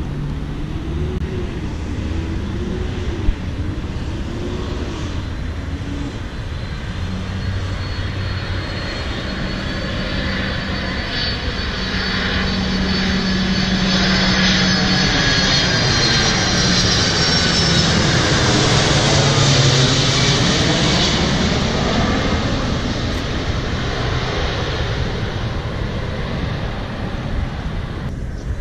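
Jet airliner flying low overhead on approach to land: a rumble with a high engine whine that swells to a peak about two-thirds of the way through, then fades as it passes.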